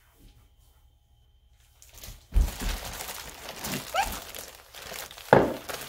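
Rustling and crinkling with bumps of handling close to the microphone, starting about two seconds in, with a short rising squeak near the middle and a sharp thud near the end.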